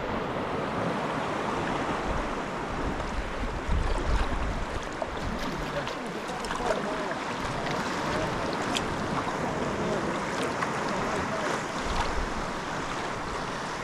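Sea waves washing and lapping against rocks and around a kayak, with scattered small splashes. Wind buffets the microphone in low gusts, strongest about four seconds in and again near twelve seconds.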